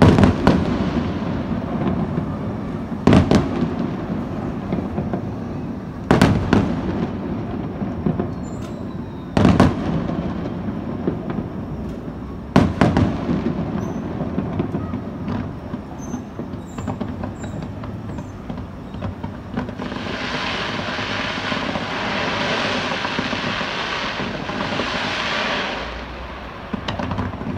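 Fireworks shells bursting in five loud booms about three seconds apart, each trailing off in a rumble, over a continuous low rumble of further launches. About twenty seconds in, a dense hissing crackle takes over for some six seconds as a low red barrage burns.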